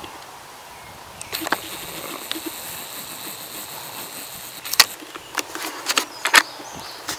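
Footsteps crunching through dry leaf litter, several sharp steps in the second half. Before them a high, steady buzz starts and stops abruptly.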